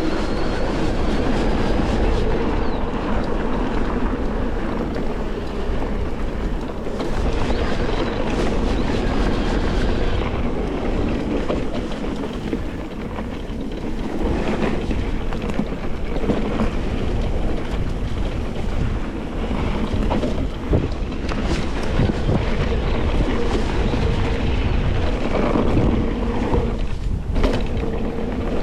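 Wind rushing over a GoPro's microphone while it moves at speed, over a steady rolling drone.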